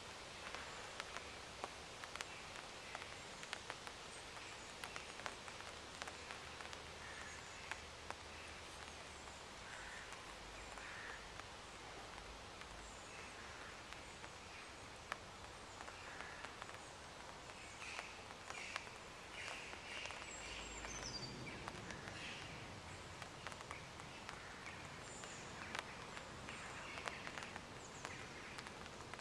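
Faint outdoor ambience: a steady hiss with distant birds chirping now and then, more often in the second half.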